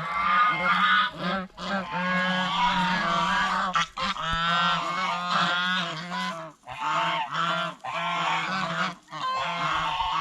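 Domestic geese honking loudly and almost without let-up, several calls overlapping in rapid runs, with brief breaks every two to three seconds.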